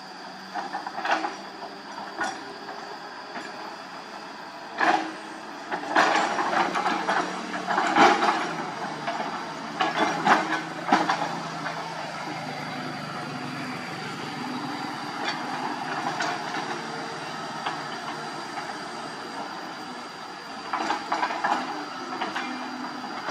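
Hyundai 220 excavator working: its diesel engine runs steadily while the bucket scrapes and clatters through soil and stones. The loudest bursts of scraping and clatter come between about five and eleven seconds in, and again near the end.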